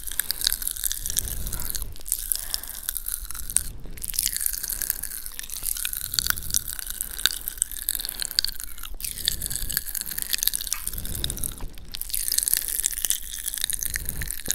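Effervescent popping candy crackling and fizzing in the mouth: a dense, continuous spatter of tiny high-pitched pops, broken by a few brief pauses.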